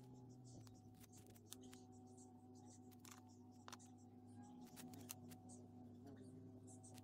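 Very faint small clicks and rustles of masking tape being pulled and pressed around a chisel handle, over a low steady hum.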